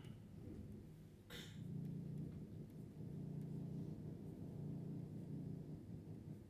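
Quiet room tone: a low steady hum, with one short click just over a second in.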